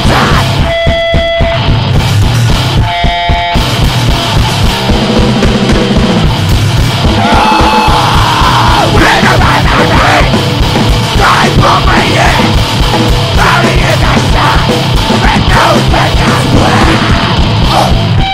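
Powerviolence punk music: loud distorted guitar over fast, relentless drumming. Twice near the start the band drops out for a moment, leaving a single ringing note.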